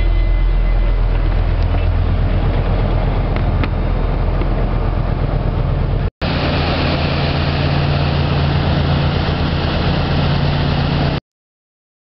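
Steady low engine drone aboard a car ferry. About six seconds in it cuts abruptly to a louder drone with a steady hum, which stops dead shortly before the end.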